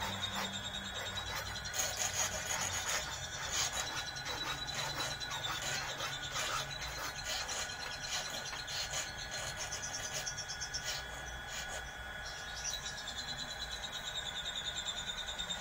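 Rubbing and light scraping from hands handling twisted-wire eel hooks strung on a line, with scattered small clicks, over a steady faint high-pitched whine.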